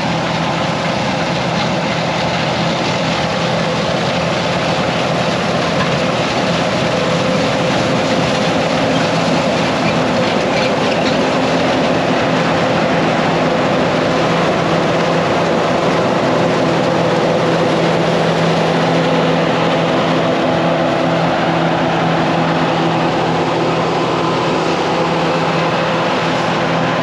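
Combine harvester running steadily while cutting soybeans: a continuous engine and threshing-machinery drone with several steady hums underneath and an even rush above.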